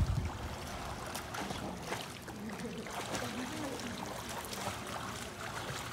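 Water splashing and churning from a child's backstroke kicks in a swimming pool. There is a low thump right at the start.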